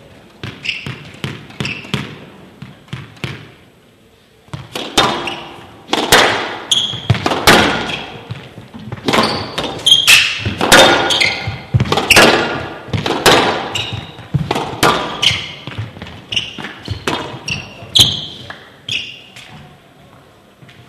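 Squash rally: the ball cracking off rackets and the court walls in a quick, irregular run of sharp knocks, with short high shoe squeaks on the court floor. A few lighter bounces come first; the rally starts about four seconds in and ends near the end.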